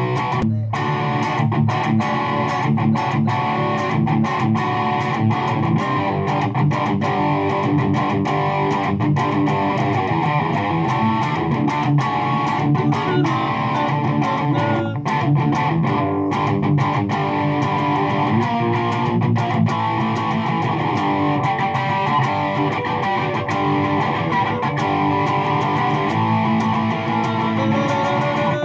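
Hagstrom Ultra Swede electric guitar played through a Fender Champion 20 amplifier, a continuous run of notes and chords, picked up by a phone microphone in front of the amp.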